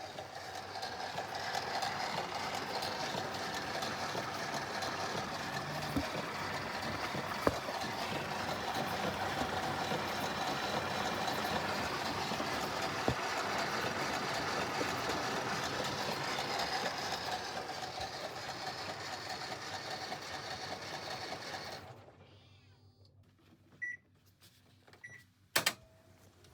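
Panasonic VX-series drum washing machine running with its drum turning, giving a steady grinding, scraping noise ("garigari", "gorigori"). The drum is rubbing against its damaged inner spin-tub cover, which has worn through. The running stops about 22 seconds in, followed by a few clicks and two short beeps.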